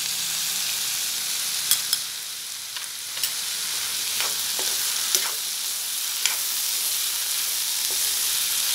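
Onion and tomato masala sizzling in oil in a metal kadai while a steel spoon stirs it. The spoon scrapes and clicks against the pan now and then.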